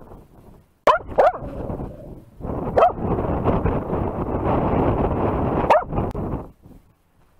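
Dog barking close to a camera strapped on its back: two sharp barks about a second in, each falling in pitch, then further barks over a loud rough rushing noise that stops shortly before the end.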